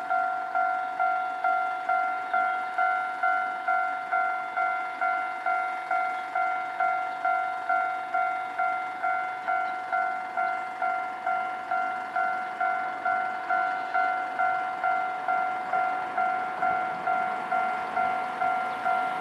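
Japanese railway level-crossing warning bell ringing one clear repeated tone in an even rhythm of about two strikes a second, the signal that a train is approaching and the barriers are down.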